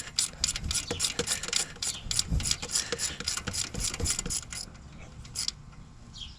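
Hand ratchet wrench clicking in a quick, even run, about five clicks a second, as it turns out a bolt on the engine's EGR valve; the clicking stops about two-thirds of the way through, with one last click after.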